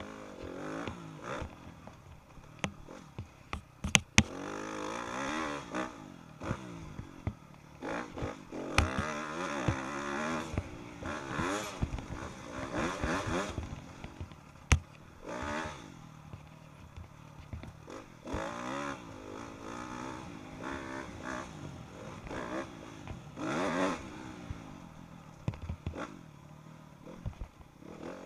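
Yamaha YZ motocross bike's single-cylinder engine revving up and dropping off again and again as it is ridden hard round a dirt track. Sharp knocks and clatter from the bike come through, the loudest about four seconds in.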